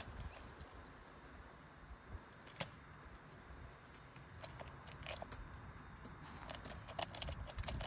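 Peregrine falcon feeding on a woodpigeon, tearing at the carcass with its beak in faint, scattered clicks and crunches over a low rumble.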